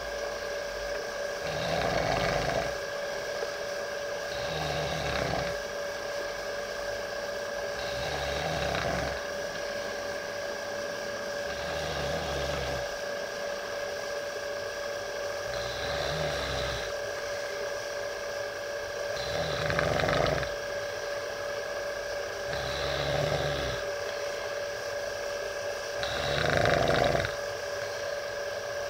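A big pet snoring in slow, regular breaths, about one snore every three to four seconds, with a steady hum underneath.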